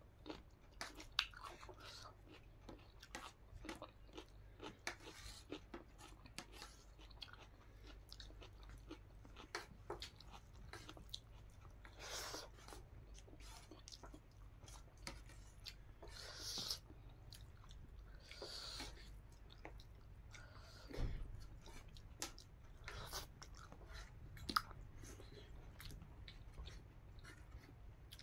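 Close-up chewing of a mouthful of rice and vegetables eaten by hand, with many soft, irregular mouth clicks and smacks.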